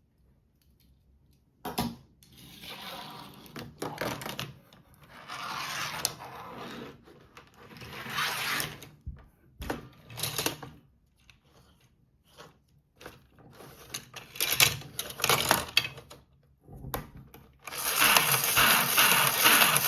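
Plastic toy playset being worked by hand: short bursts of clicking, rattling and rolling noise with pauses between them. Near the end, music with a steady beat starts.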